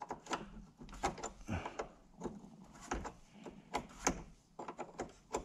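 Irregular light clicks and knocks of a 10 mm wrench working on the clamp of a car battery's negative terminal to loosen it.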